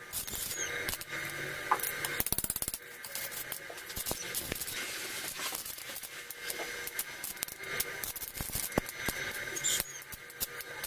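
Irregular light clicks and taps of hand work on parts, with a quick run of rapid clicks about two seconds in.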